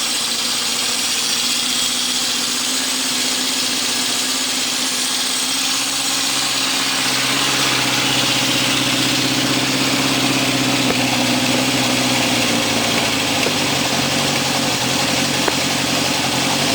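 1972 Honda CB750 K2's air-cooled inline four-cylinder engine running steadily on its four new exhausts, freshly restored with rebuilt carburetors. About seven seconds in the engine note rises a little and holds there until near the end.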